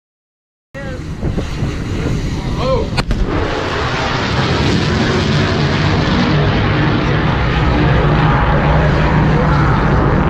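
A single sharp crack, the sonic boom of an F/A-18 jet passing supersonic, followed by the jet's engine noise building up and holding loud and steady. A few voices call out just before the crack.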